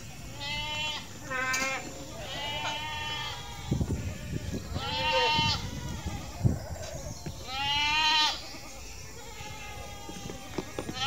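Goats bleating: about half a dozen separate wavering calls, the loudest about five seconds and eight seconds in.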